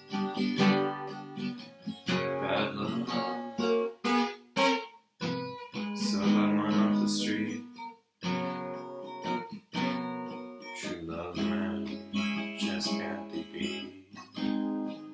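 Acoustic guitar being played, chords strummed in a slow ballad rhythm, with brief breaks between phrases about five and eight seconds in.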